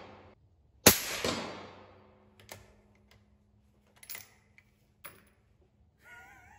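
One suppressed shot from a 6.5 Creedmoor bolt-action rifle about a second in, a sharp crack with a reverberating tail, fired through a Nomad Hunter L suppressor. A few light clicks follow as the bolt is worked, and a faint wavering whine comes near the end.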